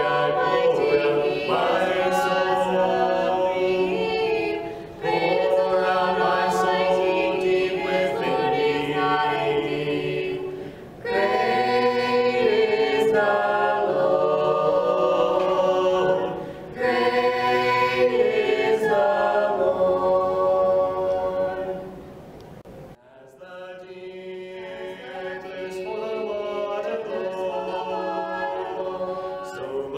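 A cappella mixed vocal quartet, two male and two female voices, singing a hymn in four-part harmony in phrases with short breath pauses. Past the two-thirds mark the singing drops away briefly, then carries on more quietly.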